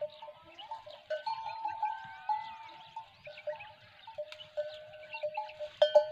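Livestock neck bells clanking irregularly at two pitches, each clang ringing on briefly, with a louder clang near the end; small birds chirp faintly behind.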